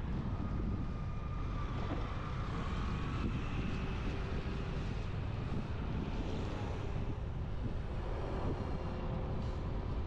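Wind buffeting an action camera's microphone on a moving motorbike, over the engine and road noise, with faint whines that drift in pitch.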